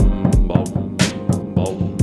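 Background music track with a steady beat: deep kick drum and sharp snare hits over sustained chords.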